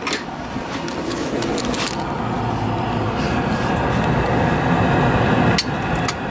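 Freshly rebuilt heater blower motor of a 1968 MGC running and blowing air, a steady whirring rush with no scraping or rubbing from the fan. A few sharp clicks sound over it, two of them near the end.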